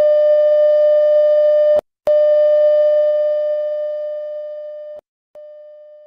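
A steady, buzzy electronic alert tone from a mock emergency broadcast. It breaks off briefly about two seconds in, comes back and fades down, and then sounds once more, much fainter, near the end.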